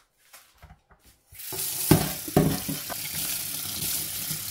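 Tap water running hard into a stainless steel sink over beetroots, coming on about a second and a half in as a steady hiss. There are a couple of knocks just after it starts, and a few soft clicks before it.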